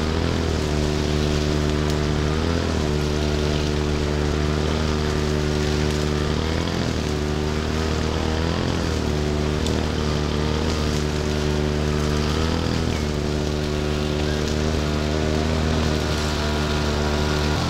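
Petrol brush cutter (grass-cutting machine) engine running steadily, its pitch dipping briefly about every two seconds.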